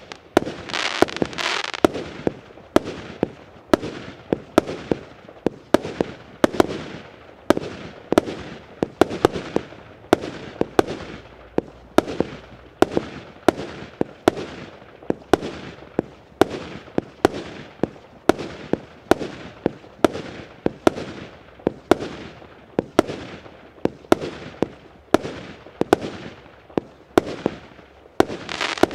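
A multi-shot fireworks cake (battery) firing its tubes one after another: a steady run of sharp bangs, about one or two a second, each followed by a short fading tail as a small shell launches and bursts in the air.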